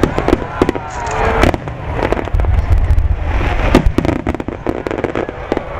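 Fireworks display: many sharp bangs in quick, irregular succession from bursting aerial shells and salvoes, over continuous crackling and a low rumble.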